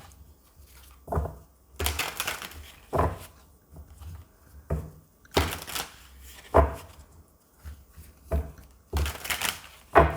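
A deck of tarot cards being shuffled by hand: short bursts of card noise and soft taps every second or two.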